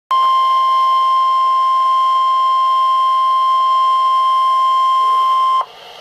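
NOAA Weather Radio 1050 Hz warning alarm tone sounding through weather-alert radio speakers: one loud, steady, unbroken beep that cuts off abruptly about five and a half seconds in. The tone is the signal that a warning, here a severe thunderstorm warning, is about to be read.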